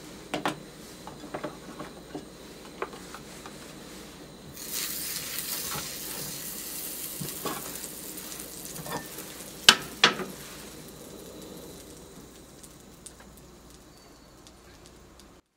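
Oil sizzling in a small hot cast-iron skillet, starting suddenly about four and a half seconds in and slowly dying down. Cast-iron pans knock against metal a few times, loudest twice in quick succession about ten seconds in.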